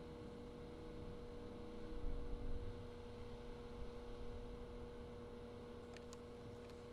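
Faint steady hum, with a low rumble that swells briefly about two seconds in and a few light clicks near the end.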